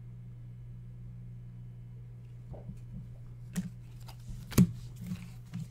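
Trading cards being handled and tapped on a tabletop: a few soft clicks and taps in the second half, two of them sharper, over a steady low hum.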